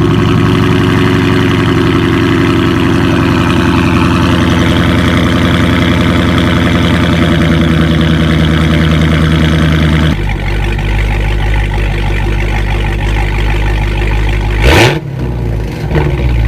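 Dodge muscle-car engine idling steadily. About ten seconds in, the sound cuts abruptly to a lower, deeper idle, which is blipped once near the end in a quick rev that rises and falls.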